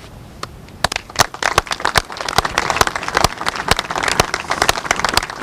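Audience applauding, starting with a few claps about a second in and quickly building into steady clapping from many people.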